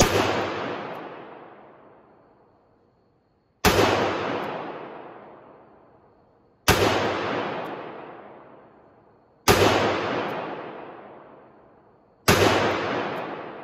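Five single-action shots from a Smith & Wesson Model 10-5 .38 Special revolver, fired slowly about three seconds apart. Each sharp report echoes through the indoor range and dies away over two to three seconds.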